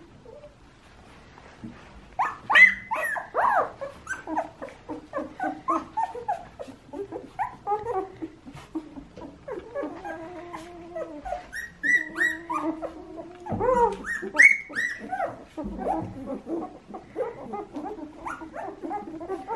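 A litter of young puppies whimpering and squeaking: many short, high-pitched cries that rise and fall, several puppies at once, starting about two seconds in.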